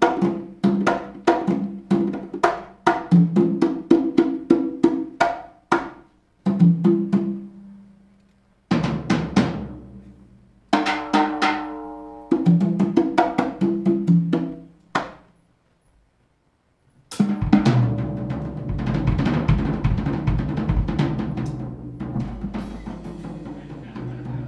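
Congas played by hand, a rhythmic run of ringing open tones and sharp slaps broken by short pauses, which stops about 15 seconds in. After a brief silence a drum kit comes in with a loud crash and busy, rolling playing under a wash of cymbals.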